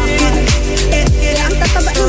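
Background music with a steady beat: a deep, falling bass hit about every 0.6 seconds under hi-hats and melodic lines.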